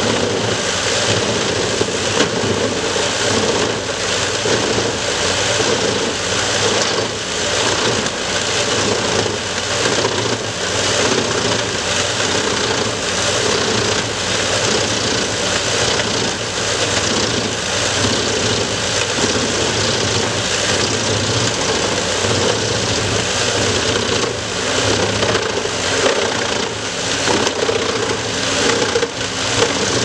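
Tractor-driven Mus-Max wood chipper chipping logs fed in by its loading crane: a loud, steady machine noise of the chipper running under load, with the tractor engine beneath it.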